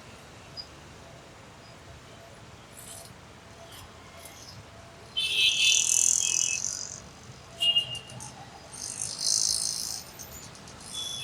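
Birds chirping: loud, high-pitched calls come in about five seconds in and repeat through the rest, over a faint, steady background noise.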